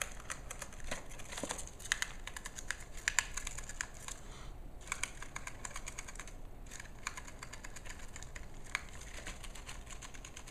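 Gerbil gnawing and shredding a cardboard toilet paper tube: rapid crisp clicks in quick bursts, broken by a couple of short pauses.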